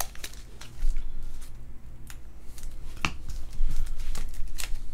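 Hands handling trading cards and foil card packs: scattered light rustles and clicks, with one sharper click about three seconds in.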